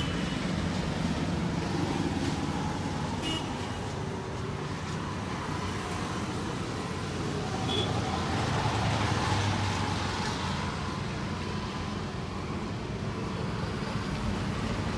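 Steady roadside traffic noise of motor vehicles running past, swelling a little as one passes about nine seconds in, with a short high beep shortly before.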